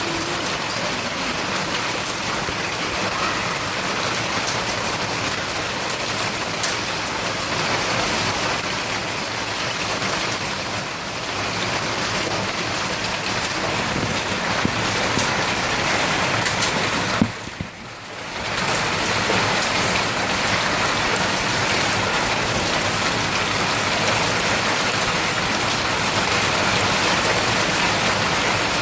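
Large hailstones pounding down on streets and roofs: a loud, dense, steady clatter. About two-thirds of the way in there is a single sharp knock, then the sound drops away for about a second before it resumes.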